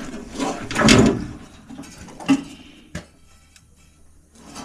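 Metal scraping and knocking as needle-nose pliers and hands work inside a sheet-metal furnace blower: a loud scrape about a second in, a sharp knock a little after two seconds, and a click near three seconds, then quieter.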